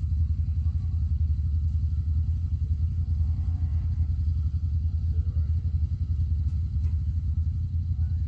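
Side-by-side UTV engine idling: a steady low rumble with a fast, even pulse.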